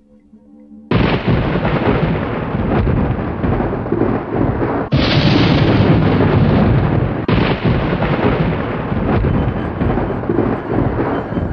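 Thunder sound effect: a sudden loud crack about a second in that rolls on as a long rumble, with two more claps near five and seven seconds.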